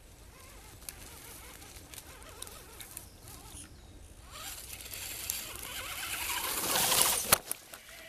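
RC scale crawler working over moss and twigs: faint rustling and scattered ticks, swelling into a louder rush of noise that cuts off abruptly with a sharp click about seven seconds in.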